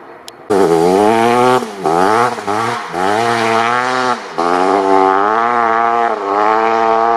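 1988 Kawasaki KX500's single-cylinder two-stroke engine at full throttle, its note climbing and dropping back several times with brief dips in between. It comes in suddenly about half a second in and cuts off abruptly near the end.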